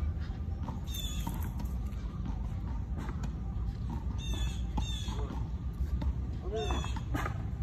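Harsh squawking calls of a bird: a few short calls about a second in, more around four to five seconds in, and a louder pair near the end, over a steady low rumble.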